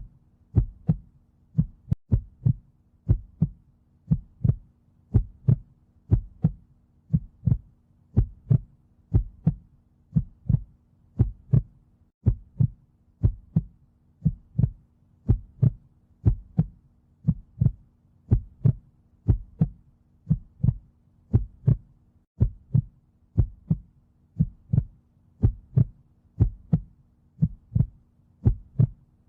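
Heartbeat sounds: a steady lub-dub pulse, the two beats of each pair close together, repeating about once a second over a faint low hum.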